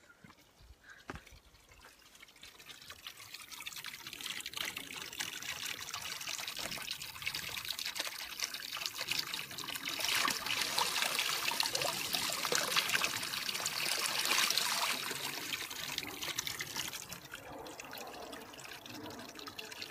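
Spring water pouring from a metal pipe and splashing onto stones in a shallow pool, a steady trickling rush that builds over the first few seconds, is loudest around the middle, and eases near the end.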